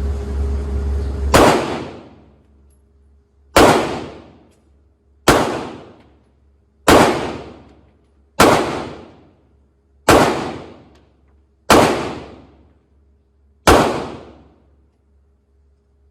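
Glock 48 9mm pistol firing eight single shots at an unhurried pace, about one every one and a half to two seconds, each crack followed by a short echoing tail. A steady low hum is heard before the first shot.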